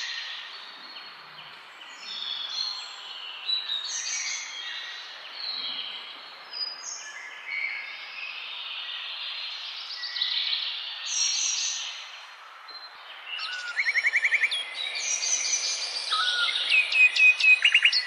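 A chorus of small songbirds singing and chirping, several voices overlapping over a steady hiss, with quick trills of rapidly repeated notes late on.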